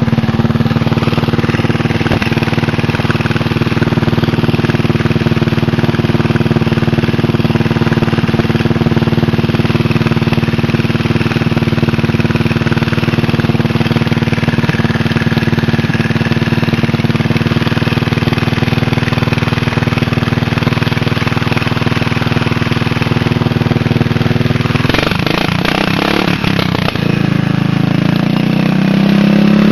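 Small riding lawn tractor engine running steadily, then speeding up with its pitch rising near the end.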